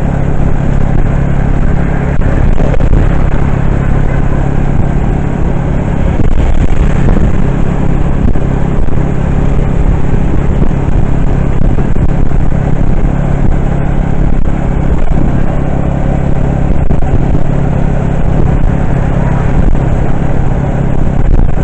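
Steady engine hum and road noise of a moving vehicle, heard by someone riding in it.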